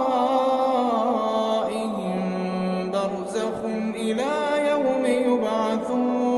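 A male reciter chanting the Quran in a slow, melodic style, holding long notes and ornamenting them with gliding pitch turns, with brief pauses for breath.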